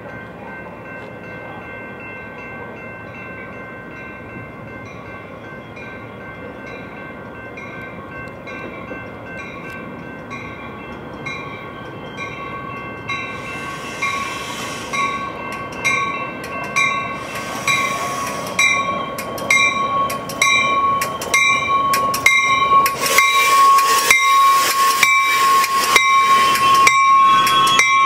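Metra push-pull commuter train, cab car leading with an F40PH-3 locomotive pushing, arriving at a station. A bell dings steadily about once every 0.7 s as it approaches. From about halfway, the wheels clack over the rail joints faster and louder as the cars roll past, under a steady high squeal from the train slowing to a stop.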